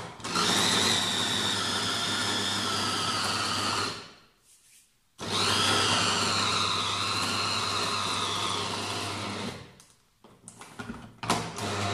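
Small electric mini chopper's motor running in pulses, blending cubes of semi-frozen margarine with flour for pastry dough: two runs of about four seconds each with a short pause between, then it starts again near the end. A steady whine, its pitch wavering during the second run.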